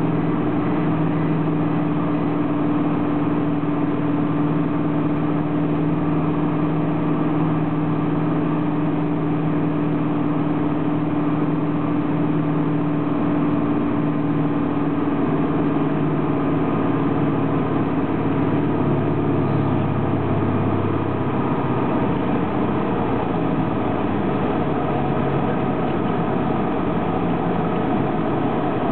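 Light aircraft's propeller engine droning steadily, heard from inside the cabin on approach. Its steady tones fade about twenty seconds in as power comes back, and a low rumble takes over as the wheels run along the dirt airstrip.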